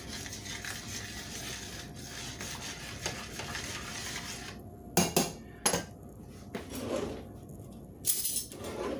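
A spoon stirring a thick cream, spinach and parmesan sauce in a stainless-steel skillet, a soft steady scraping. From about halfway through come a few sharp clanks of utensils against metal.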